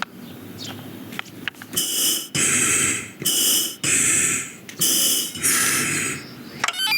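Film sound effects: a run of about five short hissing bursts, each about half a second long with a thin whistle-like tone inside. A quick rattle of clicks follows near the end.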